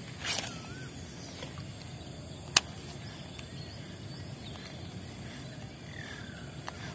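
Lakeside outdoor ambience: a steady high insect-like buzz with a few short bird calls, and one sharp click about two and a half seconds in.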